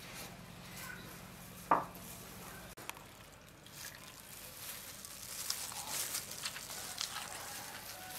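Faint eating and food-handling sounds: chewing a lettuce-wrapped bite of banh hoi, then a wrap dipped into a bowl of dipping sauce, with scattered small crackles. One short, sharp sound just under two seconds in is the loudest thing.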